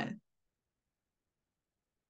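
The last syllable of a woman's spoken phrase, cut off just after the start, then dead silence.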